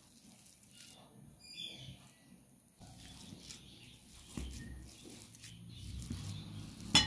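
Hand potato masher pressing boiled potatoes in a ceramic bowl: soft, low, dull thumps that grow louder over the last few seconds, ending in one sharp clack as the masher knocks the bowl. A brief high chirp sounds about one and a half seconds in.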